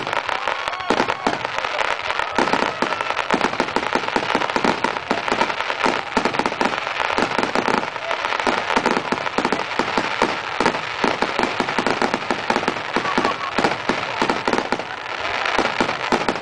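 Fireworks display barrage: many fireworks firing and bursting in quick succession, a dense, unbroken run of bangs and crackles.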